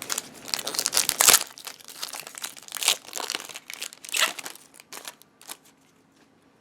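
Foil wrapper of a trading-card booster pack crinkling and tearing open, in loud bursts over the first four seconds, then a few faint rustles.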